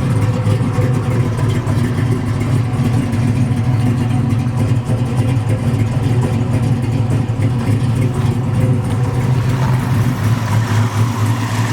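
Chevrolet 355 small-block V8 with a solid-lifter cam idling steadily, with the lumpy idle of its cam.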